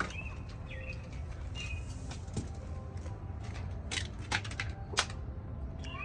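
Small birds chirping now and then in short, hooked chirps, with a few sharp clicks of plastic toy food and utensils being handled, the loudest near the end, over a steady low rumble.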